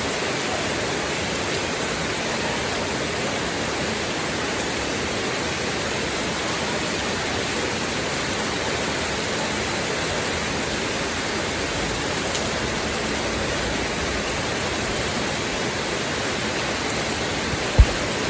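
Steady rain hiss, even and unbroken, with no separate drops standing out. A single low thump cuts through near the end.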